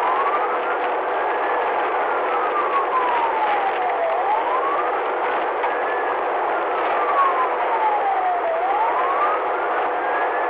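Police car siren on a slow wail, each cycle rising quickly and falling slowly, about every four and a half seconds. It sounds over steady road noise from the car driving at highway speed.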